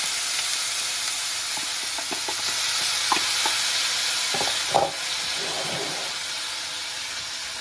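Vegetables sizzling in oil in a frying pan, with a few knocks of a utensil against the pan as they are stirred, the loudest a little past the middle. The sizzle eases slightly toward the end.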